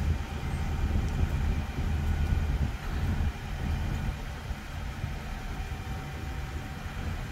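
A vehicle's engine and road rumble heard from inside as it drives slowly, a steady low drone that is a little louder in the first few seconds.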